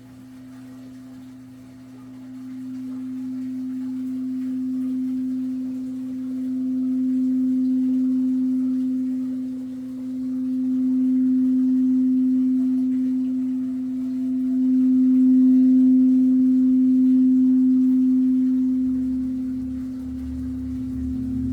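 A sound-healing instrument holding one steady humming tone that swells and ebbs in slow waves, getting louder overall. Near the end a low rumble comes in beneath it.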